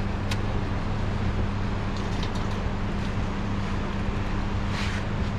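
Boat engine running steadily with a constant low hum.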